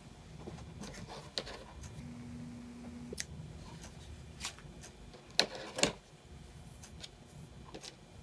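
Small clicks and rustles from handling embroidery thread and scissors, with two sharper snips about five and a half seconds in.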